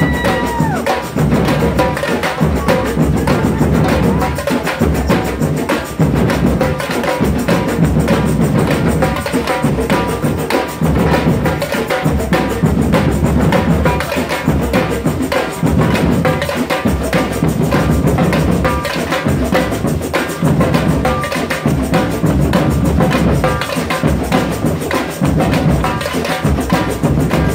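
Samba percussion group playing a samba-reggae groove live: surdo bass drums, hand drums and small hand percussion in a steady, dense rhythm.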